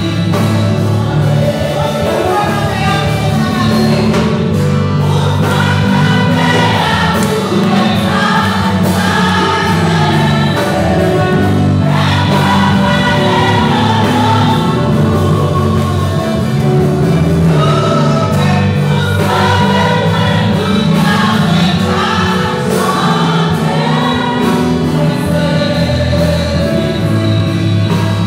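Church congregation singing a gospel worship song together as a choir, over sustained accompanying music with steady low notes.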